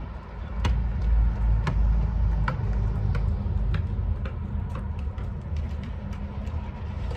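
Wind rumbling on the microphone, heaviest in the first few seconds, over a steady low hum. A string of sharp ticks runs through it at about two a second.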